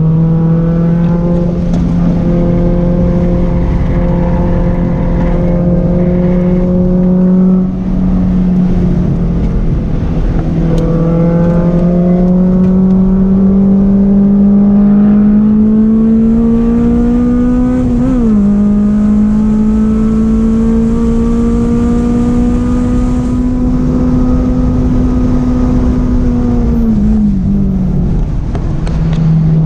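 Honda S2000's four-cylinder engine heard from inside the cabin under hard track driving, its pitch climbing slowly as it pulls through the gears. A sharp drop in pitch about 18 seconds in marks an upshift, and the note falls away near the end as the car slows, over steady road and wind rumble.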